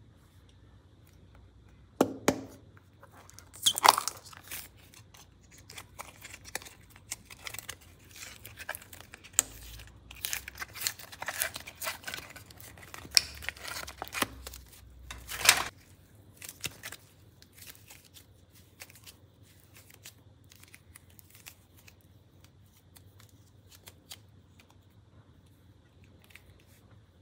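A hard plastic toy case clicks open, then soft modelling clay is peeled and squeezed out of a thin clear plastic tray, with crackling and crinkling of the plastic and a last sharp click a little past halfway. After that only faint handling sounds as the clay is set down.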